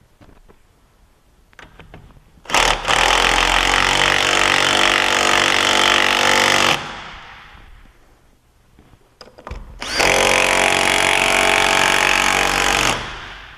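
A power tool running in two sustained bursts of about four and three seconds, each held at a steady pitch, with a few faint clicks before each burst.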